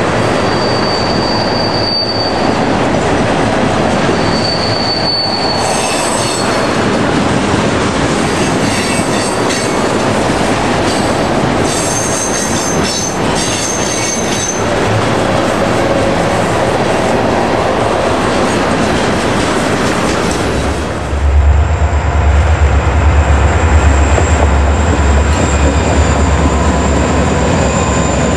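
Freight train cars rolling past on the rails, a dense steady clatter of steel wheels with short high-pitched wheel squeals twice near the start and again mid-way. About three-quarters of the way through, a deep low rumble comes in and the sound gets louder.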